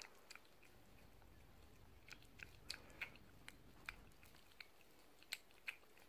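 Cat licking and lapping a Churu lickable treat from a squeeze tube: faint, irregular little clicks and smacks of the tongue and mouth.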